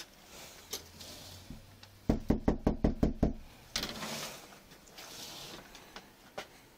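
A fist knocking hard and fast on a house's front door: a quick run of about eight knocks in just over a second, about two seconds in. Softer rustling and a few light clicks come before and after.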